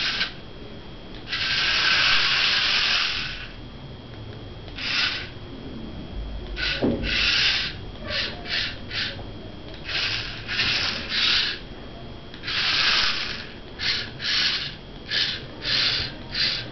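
Small DC motors of a homemade four-wheel-drive RF remote-control car whirring in stop-start bursts as the car is driven: a couple of runs of about two seconds and many short ones a fraction of a second long.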